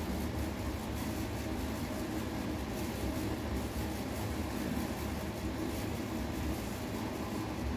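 Steady low rumble with a fainter hiss of background room noise, unchanging, with no distinct events.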